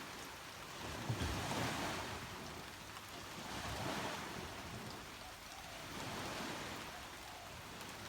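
Waves washing onto a beach, the surf swelling and falling back about every two and a half seconds, with rain falling.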